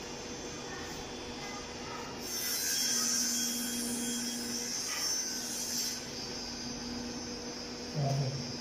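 Wallpaper being rubbed and smoothed flat against the wall by hand: a hissing, papery rustle for about four seconds, starting about two seconds in, over a steady electrical hum.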